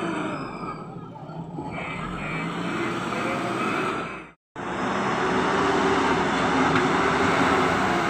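JCB backhoe loader's diesel engine running under load, its pitch rising and falling as the hydraulics work. The sound cuts out for a moment about halfway through, then the engine runs on louder as the loader pushes into the soil heap.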